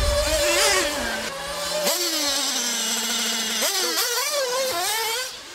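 Several 1/8-scale nitro RC buggies' small two-stroke glow engines running at once, each a high whine at a different pitch, rising and falling with the throttle. A sharp rev rises about two seconds in and others around four seconds.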